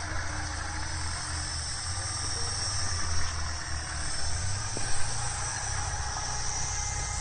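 Vehicle engines running with a steady low rumble under a constant high hiss, with a couple of brief knocks about three and five seconds in.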